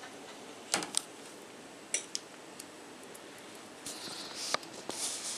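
Small handling noises as digital calipers are picked up and closed on a thin strand of extruded plastic: a few sharp clicks in the first two seconds, then rustling with one more click near the end.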